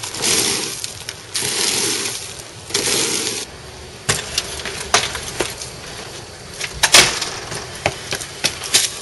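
Three long hissing, scraping strokes of about a second each, then scattered clicks and knocks, the loudest about seven seconds in.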